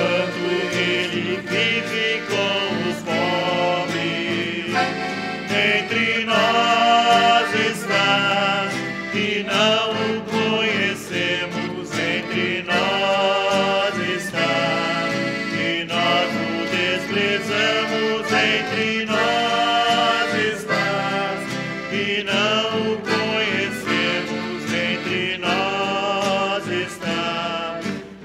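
Piano accordion playing a hymn melody in sustained notes over a strummed nylon-string classical guitar: an instrumental passage between sung verses.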